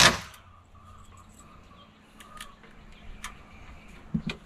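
A drill driving a screw into a metal joist hanger stops right at the start. After that there are only faint bird chirps, a few light clicks and a couple of soft knocks near the end.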